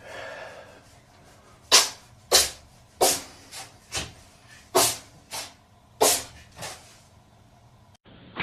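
A cat sneezing again and again: about nine short, sharp sneezes over some five seconds, several of them followed by a weaker one.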